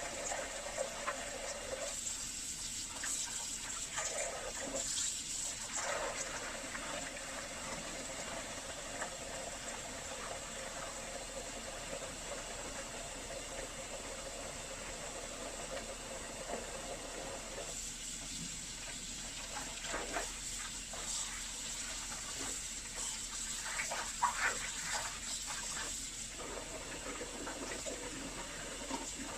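Running water splashing steadily while dirty vacuum cleaner filters are rinsed and washed, with occasional louder splashes.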